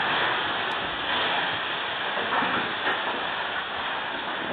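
Severe storm wind rushing through the trees with rain, heard through a security camera's microphone as a steady rushing noise that swells and eases a little.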